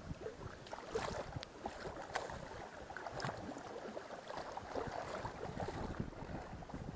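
Choppy river water splashing and slapping against a small inflatable boat as it moves through the current, a dense crackle of small irregular splashes, with wind buffeting the microphone.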